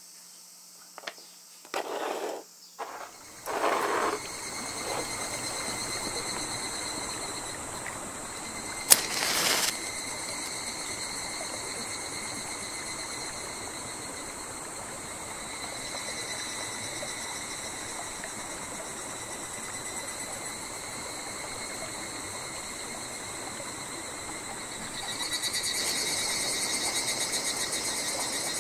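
Insects chirring steadily outdoors over a faint hiss. There are a few short knocks in the first few seconds and one sharp click about nine seconds in, and the chirring grows louder near the end.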